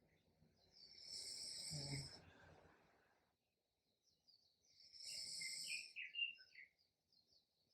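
A person snoring faintly in sleep. There are two slow breaths about four seconds apart, and the first carries a low snore rattle about two seconds in.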